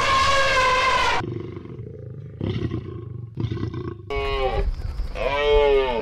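Elephant trumpeting: a loud, blaring call about a second long, followed by a few short low grunts and, near the end, two more calls that fall in pitch.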